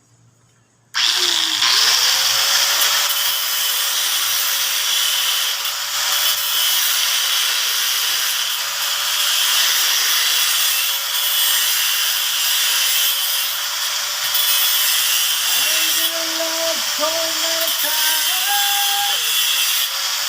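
A handheld power tool starts about a second in and runs steadily at a constant speed, a continuous whirring with one steady whine.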